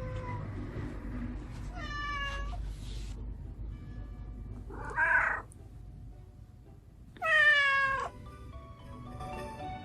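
Domestic cat meowing three times, the last call the longest and loudest. Light chiming background music comes in near the end.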